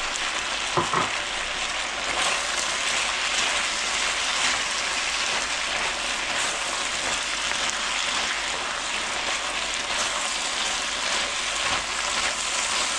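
Asparagus and beef strips sizzling steadily in a hot frying pan as they are stir-fried in their sauce, with light scrapes and ticks of a wooden spatula turning the food.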